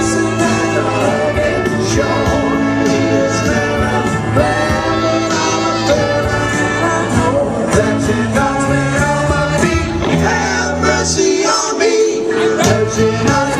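A band playing a song, with singing.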